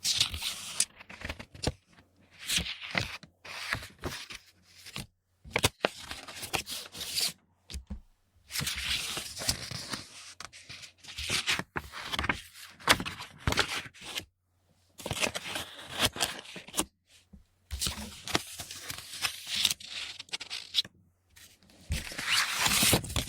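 Paper being handled: sheets moving, rustling and sliding across a surface in irregular bursts of a second or two, with short pauses and sharp crisp snaps between them.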